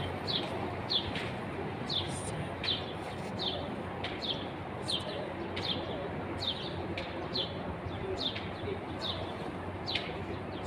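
A small bird chirping over and over, one short falling chirp a little more than once a second, over a steady background hiss of outdoor noise.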